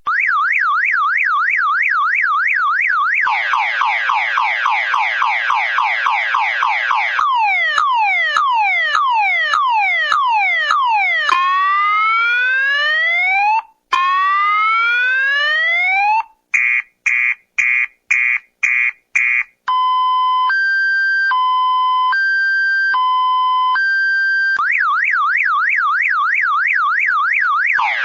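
Electronic car alarm siren cycling through its tone patterns. A fast up-and-down warble gives way to a rapid whooping, then falling sweeps and rising whoops. A quick run of short beeps follows, then a slow two-tone high-low alternation, and the fast warble returns near the end.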